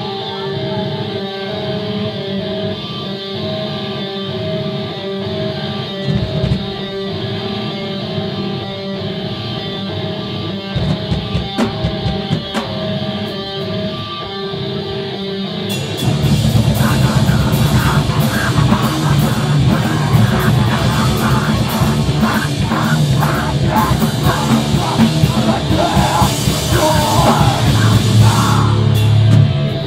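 Live screamo band: an electric guitar picks a repeating figure over bass and sparse drum hits, then about sixteen seconds in the full band comes in loud with drums, distorted guitars and screamed vocals.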